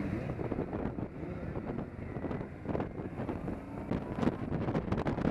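Motorcycle engines running at low road speed, with wind buffeting the microphone in gusts that get stronger near the end.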